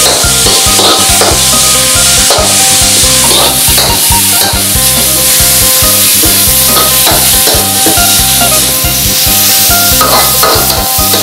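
Minced pork sizzling and frying in a hot wok while a metal spatula stirs it, with irregular scrapes of the spatula against the wok.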